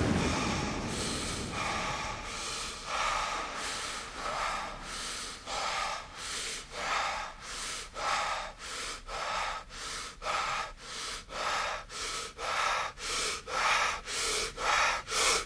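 Heavy, rasping breathing as a haunted-house sound effect: breaths come in quick pulses, faster and louder towards the end, then cut off suddenly.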